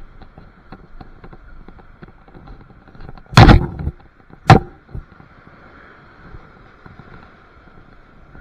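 Two loud knocks about a second apart, the first a short clatter and the second a single sharp knock, over a faint steady whine.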